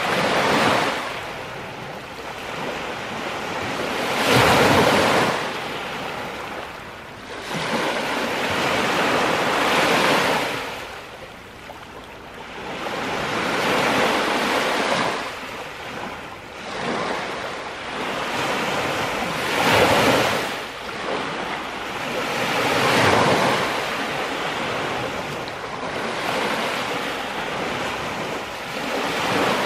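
Small lake waves breaking and washing up a pebbly beach, each wash swelling and fading away, one every few seconds.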